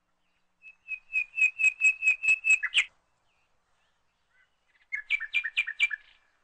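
A bird singing: a run of about nine quick whistled notes, roughly four a second, ending in a short slur. After a pause of about two seconds comes a shorter run of five two-pitched notes.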